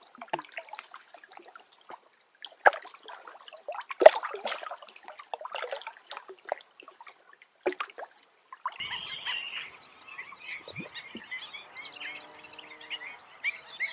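Wetland field sound: irregular splashes and drips of water for the first eight or nine seconds, then a chorus of rapidly repeated short chirping calls, about three or four a second.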